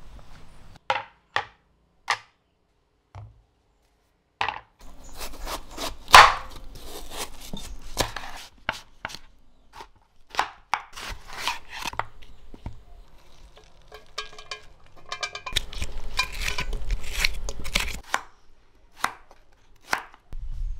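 Knife chopping on a cutting board: short runs of sharp cuts with pauses between them.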